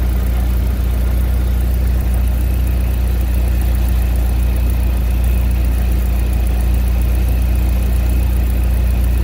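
VW 1.8T turbocharged four-cylinder engine idling steadily, with a faint high whine joining about three seconds in.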